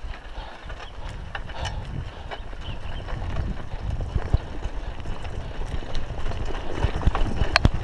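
Mountain bike rolling over a rough dirt trail: a low rumble with many small knocks and rattles, growing louder, and a brief sharp squeak near the end.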